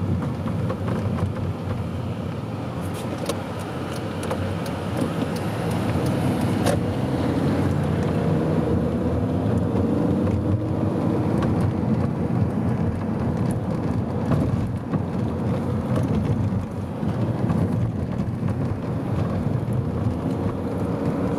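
Car driving on the road, heard from inside the cabin: a steady rumble of engine and tyres, with a faint engine tone that rises and falls a little.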